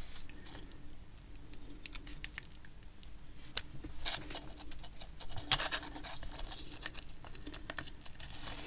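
Close-up handling noises of a small pouch battery being worked with double-sided tape: fingers rubbing and scratching on the tape and foil, with irregular light clicks and taps of plastic as it is pressed into a plastic case near the end.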